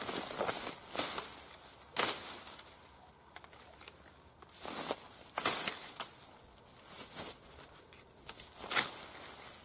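Fiskars XA23 brush hook swung as an ax into a rose bramble: a series of sharp, irregular chops as the blade cuts through woody stems, with swishing and rustling of the brush between strikes.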